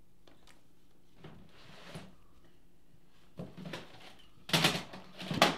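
Rummaging through a plastic storage tote: items shifted and knocked against the bin, with two loud clunks near the end as something heavy is lifted out.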